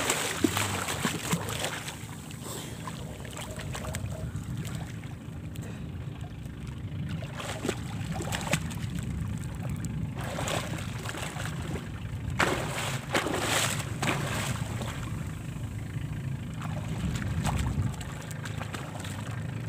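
Sea water sloshing and splashing close to the microphone as swimmers move at the surface, over a low steady rumble. There are several sharper splashes between about 8 and 14 seconds in.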